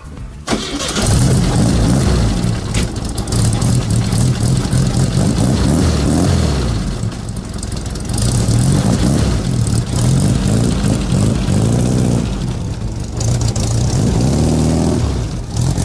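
Volkswagen Type 3's air-cooled flat-four engine running and revving up and down as the car is driven, with drive to the wheels restored after the broken CV joint bolts were replaced.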